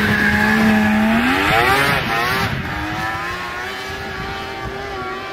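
1997 Yamaha Mountain Max snowmobile's three-cylinder two-stroke engine running at a steady pitch, then revving up about a second in as the sled takes off uphill. After that it settles to a steadier note that grows fainter as the sled climbs away.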